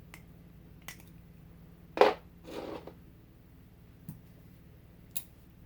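Balisong butterfly knife being handled: a few light clicks of its metal handles and latch, with one louder clack about two seconds in followed by a brief rustle.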